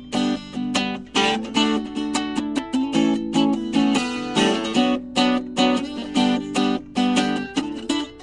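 Acoustic guitar strumming chords in a steady rhythm, the instrumental lead-in to a song before the vocal comes in.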